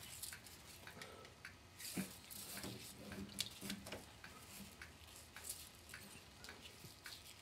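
Hand-knotting cast-net meshes with a netting needle over a wooden mesh gauge: faint, irregular small clicks and rustles as the cord is drawn through and each knot snugs down.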